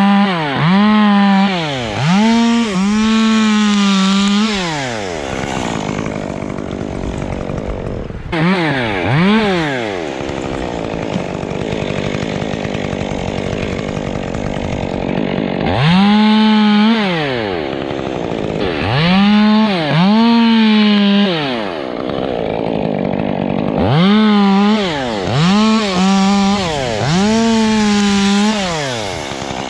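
Two-stroke chainsaw revved to full throttle in repeated bursts, each climbing to a steady high pitch and falling back, dropping to a lower idle in the gaps between.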